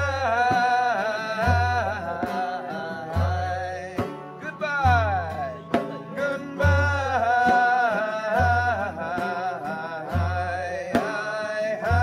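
Acoustic folk playing on banjo and acoustic guitar, with a deep drum beat a little under every two seconds and a high, wordless melody line that bends and swoops in pitch.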